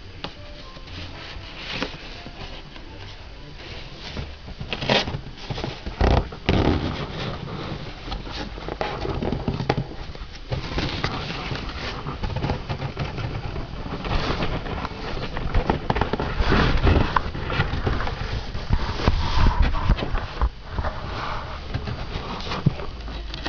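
Cardboard box flaps rustling and scraping close up, with irregular knocks and crackles, louder and busier in the second half.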